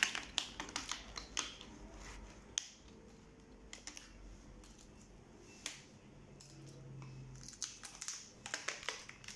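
Plastic screen bezel of an HP ProBook 450 G6 laptop being pried off by hand: a series of sharp plastic clicks and snaps as it comes away, many near the start and again near the end, fewer in between.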